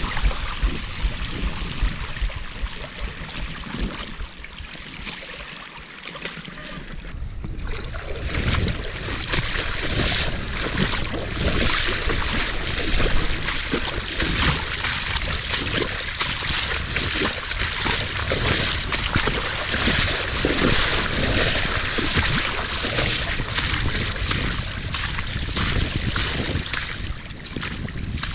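BMC Speedfox 29 mountain bike's tyres and the rider's shoes splashing through shallow floodwater, a continuous sloshing spray. It eases off about five seconds in, then grows louder and choppier from about eight seconds on.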